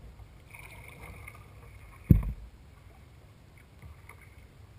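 Kayak being paddled on calm water: a quiet low wash of water sounds, with one short, dull thump about two seconds in.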